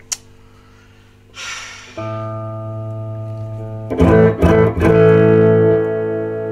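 Electric guitar played through a Peavey Classic 30 tube amplifier: a click and a brush across the strings, then a chord left to ring about two seconds in, a few quick strums near four seconds, and another ringing chord. The tone sounds dull, with the treble control turned down.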